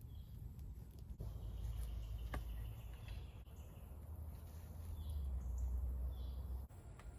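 Woodland ambience: faint, scattered bird or insect chirps over a steady low rumble, with a few light clicks.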